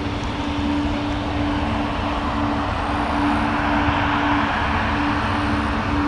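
Boeing 737-800's CFM56-7B jet engines running at low power as the airliner taxis and turns on the runway: a steady jet rush over a low rumble and hum, swelling a little about halfway through.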